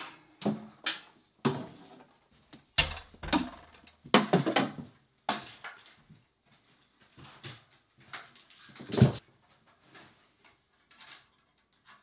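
Handling sounds of a person walking into a small room and setting up a tripod: irregular knocks, clicks and soft bumps. A dull bump comes about three seconds in and the loudest sharp knock about nine seconds in.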